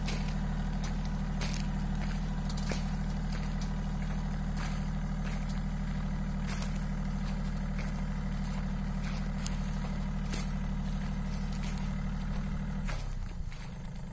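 Tractor engine running steadily while driving a mounted boom sprayer, with occasional faint clicks; about a second before the end the engine note drops as it slows down.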